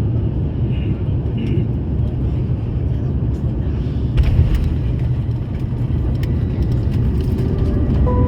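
Steady low rumble of cabin noise inside an Airbus A350, the engines and airflow heard from the passenger cabin, with a few light clicks about halfway through.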